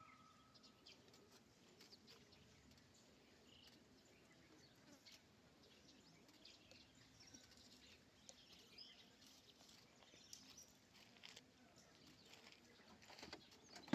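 Near silence: faint outdoor ambience with scattered faint chirps and clicks, a little busier near the end.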